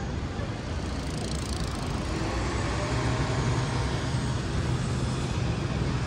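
City street traffic: a steady low engine rumble with vehicles passing, and a brief hiss about a second in.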